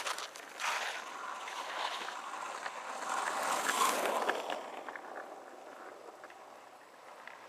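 Longboard wheels rolling over rough asphalt, a steady grinding noise that builds up and is loudest just under four seconds in, then fades away. A single sharp click at the very start.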